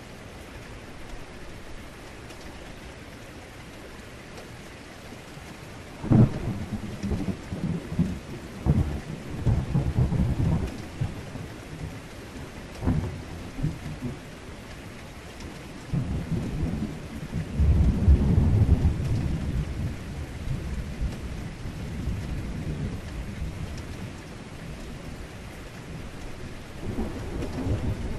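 Heavy rain falling steadily, with thunder. A sharp clap about six seconds in rumbles on for several seconds, another clap follows near the middle, and the longest, loudest rumble comes a few seconds later, with a fainter one near the end.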